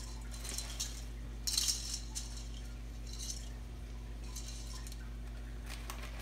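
Light clinks and rattles of kitchen dishes and utensils being handled, in a few short bursts, over a steady low hum.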